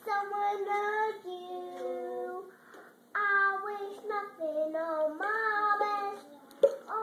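A young girl singing a song, holding each note for up to a second with short pauses between phrases. A sharp tap sounds once near the end.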